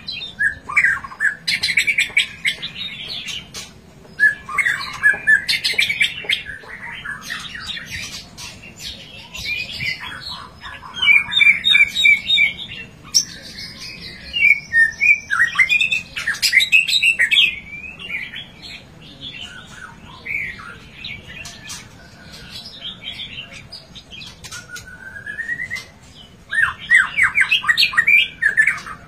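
White-rumped shama singing in bursts of quick, varied phrases, fast chattering runs mixed with whistled notes and harsh squawks. A smooth rising whistle comes a little before the end, followed by a dense run of rapid notes.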